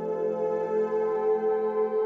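Background music: sustained, ringing ambient tones.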